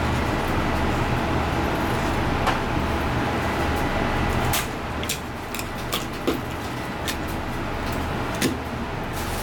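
Steady background hum and rushing noise that drops a little in level about halfway through, with a few sharp clicks and ticks from a knife working along a flathead fish's backbone on a cutting board while filleting it.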